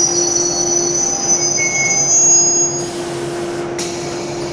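JR 183 series electric train standing at the platform while it is uncoupled: a steady electrical hum with a high whine from the train's equipment. The whine stops about three seconds in and a short hiss takes its place.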